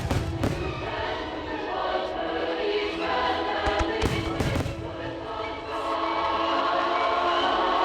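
Fireworks display set to music: choral music plays over loudspeakers while several firework shells burst, at the start and again in a cluster about four seconds in.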